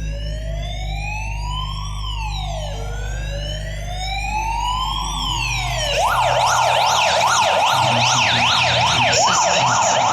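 Siren sound effect played through a DJ sound system during a sound check: a slow wail rising and falling in pitch, switching about six seconds in to a fast yelp of two or three sweeps a second. A steady low hum lies under the wail and fades as the yelp starts.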